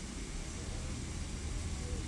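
Steady cabin noise inside a jet airliner: an even low rumble with a hiss of air over it.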